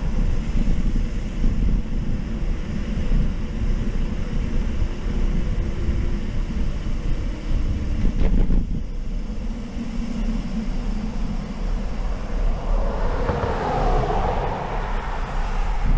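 Steady wind rush and rumble on the microphone of a camera carried by a moving cyclist, with road noise underneath; the noise swells louder near the end.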